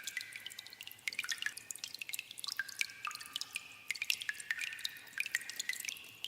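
Water dripping in a cave: many irregular drops a second, each a short, high, ringing plink.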